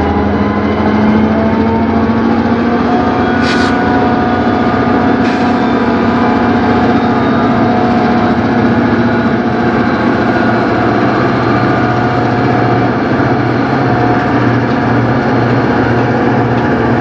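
Diesel-electric freight locomotives passing close by, their engines running with a steady low hum and a few higher whining tones. Two brief sharp high squeaks come about three and a half and five seconds in.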